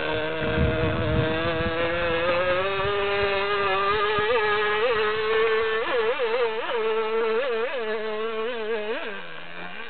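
An RC speedboat's MVVS 6.5 cc two-stroke model engine running flat out in a high, buzzing whine. About halfway through, the pitch jumps up in quick surges roughly twice a second. Near the end the note drops lower and fades somewhat.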